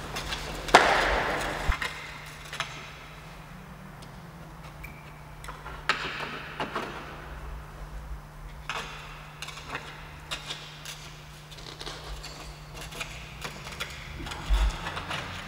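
Scattered handling noises: a loud rustling scrape about a second in, then occasional clicks, knocks and short scrapes, over a steady low hum.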